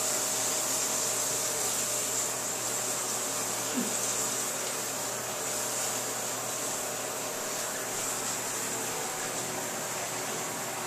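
Axe aerosol body spray hissing in one long continuous spray, easing slightly toward the end.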